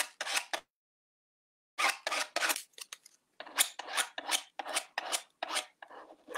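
Small spreader scraping paint across a mesh stencil in quick back-and-forth strokes, about three a second, with a pause of about a second near the start. The scraping is the sign that the paint is going through the mesh.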